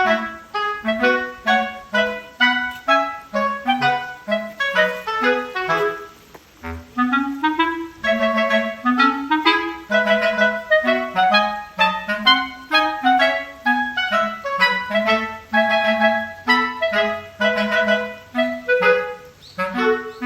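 Background music: a lively melody of short, quick notes over a lower accompanying line.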